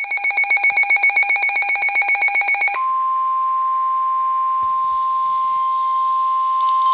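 Emergency alert tones: rapid electronic beeping, about nine beeps a second, then from about three seconds in a single steady warning alarm tone of the kind that NOAA Weather Radio sounds before a warning message.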